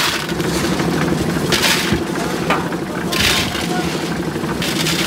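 Engine of a portable drum concrete mixer running steadily. Over it, gravel and sand clatter into the turning drum in short rushes about every second and a half, as pans of aggregate are tipped in.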